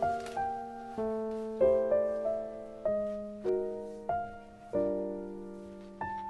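Soft background piano music, single notes and chords struck about once a second and left to fade.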